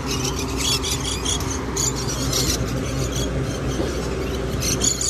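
Lorikeets giving short, shrill screeching calls in repeated bursts, over a steady low background hum.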